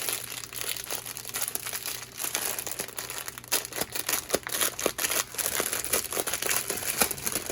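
Small plastic bags of diamond painting drills crinkling and rustling as they are handled, with irregular crackles throughout.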